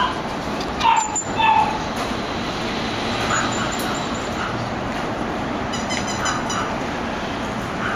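A Yorkshire terrier puppy on a leash gives a few short, high-pitched yelps and whines in the first second and a half, over steady background noise.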